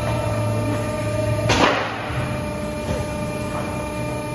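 Steady hum of workshop machinery, with one sharp thump about a second and a half in and a fainter knock later.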